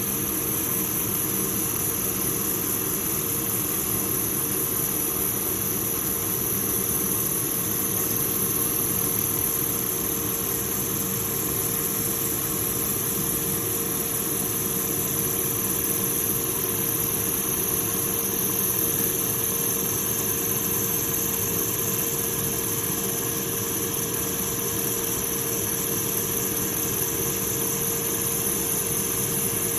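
Woodworking machinery running steadily: a constant mechanical hum with a steady high-pitched whine over it.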